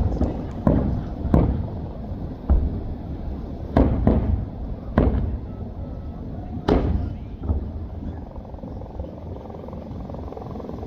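Fireworks going off: about eight sharp, irregularly spaced bangs over ten seconds, each fading briefly, over a steady low rumble.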